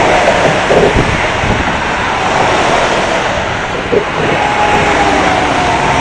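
Loud wind noise on a phone's microphone over the steady noise of lorries and cars going by on the motorway alongside.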